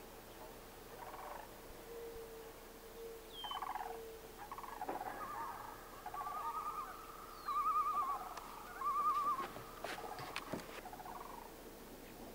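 Bird calls: a series of pitched calls that build to two loud, rapidly wavering warbles about two-thirds of the way through. A faint steady hum runs underneath.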